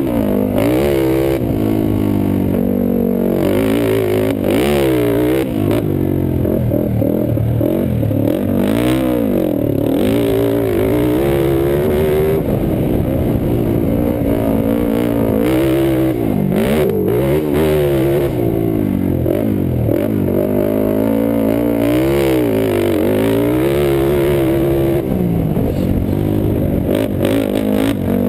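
Sport quad (ATV) engine heard on a helmet camera while racing a dirt track, its pitch rising and falling over and over as the throttle is opened and closed through corners and jumps, with a few brief knocks about two-thirds of the way in.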